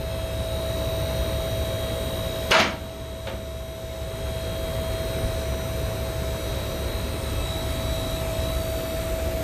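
Car lift's motor running steadily as it raises a car, a constant hum with a low rumble, and a single sharp clack about two and a half seconds in.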